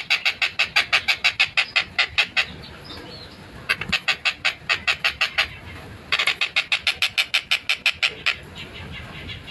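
Collared kingfisher (tengkek buto) giving fast runs of harsh, rapid 'kek-kek-kek' notes, about seven a second. There are three long bursts with short pauses between them, and fainter notes near the end.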